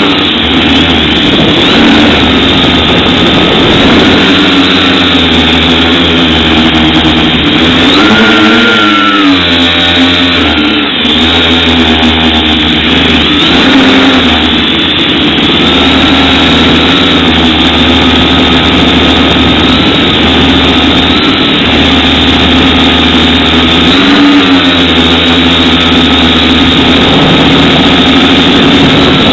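FPV quadcopter's electric motors and propellers whining, heard from the aircraft's own camera. The pitch rises and falls with the throttle, with a sharp swoop about a third of the way in and another near the end.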